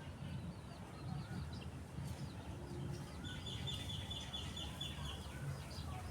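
Chickens clucking, with repeated short high chirps and, in the middle, a rapid high trill lasting about two seconds, over a steady low rumble.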